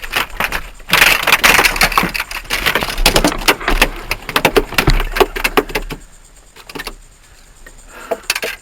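A freshly netted flounder thrashing in the landing net and against the boat: a rapid clatter of slaps and knocks for about five seconds, starting about a second in, then dying down.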